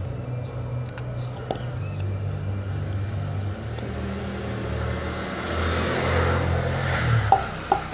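A vehicle engine running with a steady low hum. A swell of noise rises and falls about six to seven seconds in, and a couple of sharp clicks come near the end.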